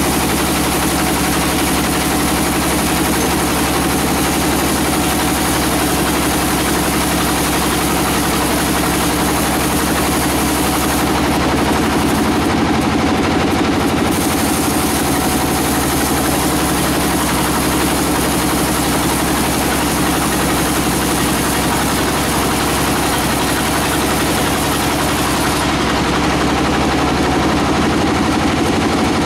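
Sawmill machinery running steadily, a constant even engine hum that does not change in pitch.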